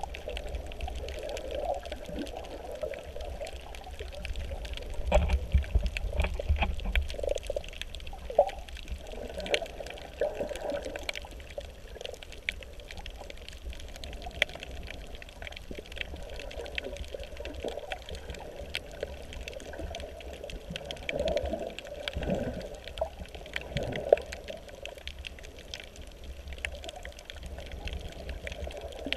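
Underwater sound picked up by a camera while snorkeling over a reef: water sloshing and bubbling against the housing, with a low rumble that swells around five seconds in and again past twenty, and many faint scattered clicks.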